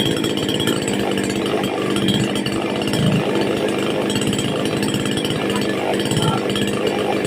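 Petrol chainsaw engine running steadily.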